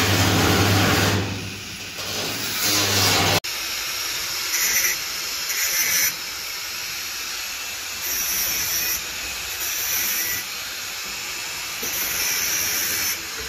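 Corded angle grinder with a cutting disc cutting into the corrugated steel wall of a shipping container, running loud and steady with a low hum. About three and a half seconds in it gives way to a quieter small angle grinder working steel inside a rebar cage, its high-pitched cutting hiss coming and going about five times.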